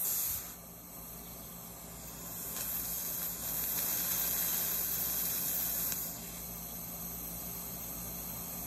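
Dental air-water syringe hissing as it sprays the prepared molar cavity, louder for a few seconds in the middle.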